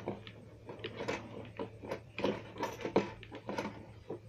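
Handling noise: an irregular scatter of light clicks, taps and rustles from things being moved about close to the microphone.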